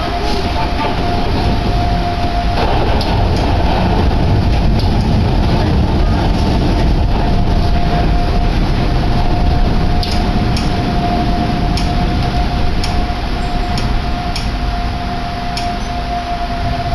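Inside a Sangi Railway Hokusei Line narrow-gauge train car running: a dense rumble of the wheels on the rails with a steady high tone through it. From about ten seconds in come sharp clicks roughly every half second, and the sound eases off slightly toward the end.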